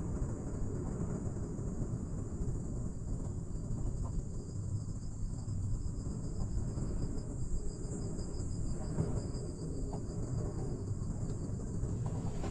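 Steady low rumble inside a moving cable car gondola as it runs along its cables, with a steady high-pitched hiss above it and a few faint ticks.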